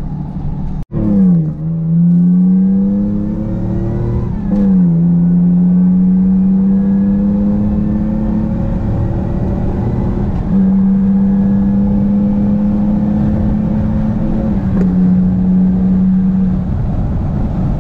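Car engine accelerating, heard from inside the cabin. The revs climb for a few seconds, drop at a gear change about four and a half seconds in, then rise slowly and settle into a steady highway cruise, with road noise underneath.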